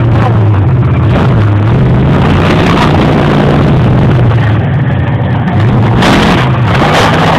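Monster truck engine running loud and revving, its pitch rising and falling, with a brief louder burst of noise about six seconds in.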